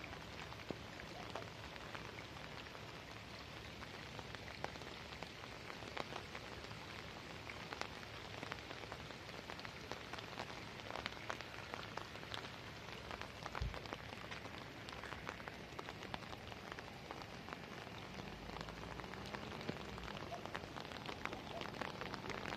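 Steady rain falling on floodwater and wet ground, an even hiss dotted with many sharp, close drop ticks.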